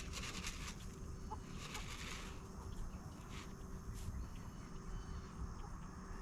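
Chickens clucking faintly, with a steady low rumble underneath.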